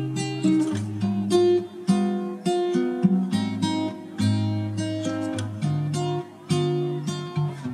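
Background music: acoustic guitar playing picked notes and chords.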